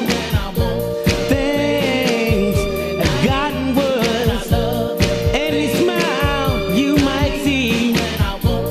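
A song plays: a singer holding a wavering melody over a band with a steady beat and sustained chords.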